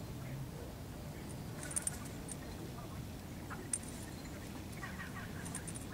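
Faint bird calls over a steady low rumble, with a few short, sharp clicks scattered through.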